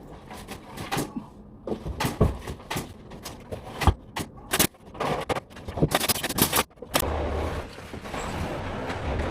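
Irregular sharp knocks and clicks, then a steady low mechanical hum that starts about seven seconds in.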